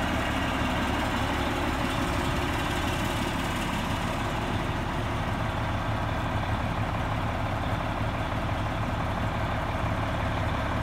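The Detroit Diesel engine of a 1999 Oshkosh 4x4 dump truck idling steadily with a low, even hum.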